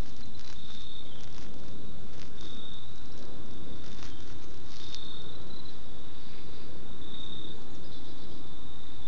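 Crickets trilling in a steady high-pitched chorus that swells every second or two, over a steady low rumble, with a few sharp clicks or rustles in the first half.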